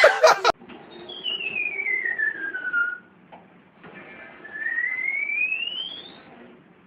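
A whistle glides slowly downward in pitch, then after a short pause a second whistle glides slowly upward.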